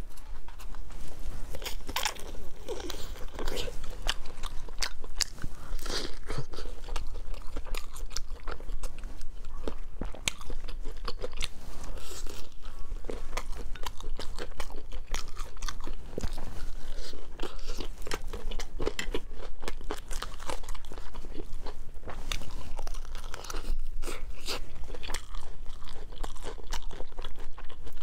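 Crunching bites and chewing of pan-fried pork buns (shengjian bao), a dense run of short, sharp crackling clicks throughout.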